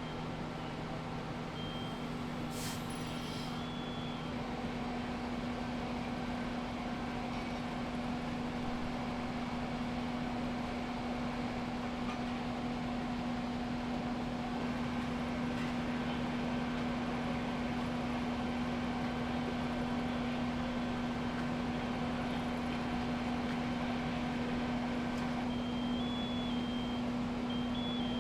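Fire engine running steadily at the scene, a constant hum with a few fixed tones over it. Short electronic beeps come near the start and again near the end, and a brief hiss sounds about three seconds in.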